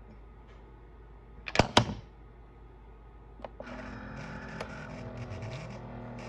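Two sharp clicks about one and a half seconds in. From about three and a half seconds in, a single-serve coffee maker starts up with a steady hum as it begins a brew cycle.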